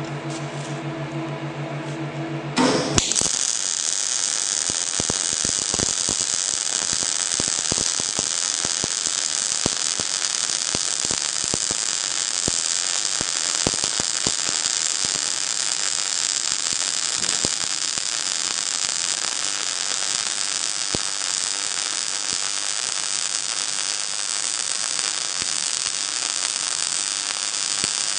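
MIG welding arc running a fillet weld on steel: after a steady hum for under three seconds, the arc strikes about three seconds in and crackles and sizzles steadily with dense fine pops.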